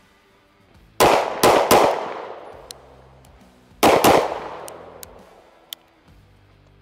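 Springfield Armory Prodigy 1911 DS 9mm pistol firing five shots: three quick shots about a second in, then two more in quick succession nearly three seconds later, each trailing off in a long echo.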